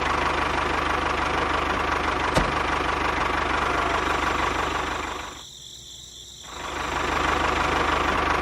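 An engine or motor running steadily with a fast, even rattle; it drops away for about a second past the middle, then picks up again.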